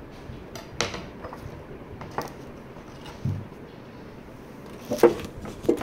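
A few sharp knocks and clicks of kitchen things handled on a table, loudest about a second in and again near the end: a kitchen knife laid down on a plastic cutting board and a bowl of salad set in place.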